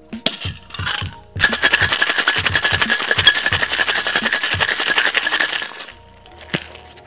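Ice rattling fast and hard inside a metal cocktail shaker for about four seconds, after a few separate clinks at the start, then one sharp knock near the end. Background music with a steady beat runs underneath.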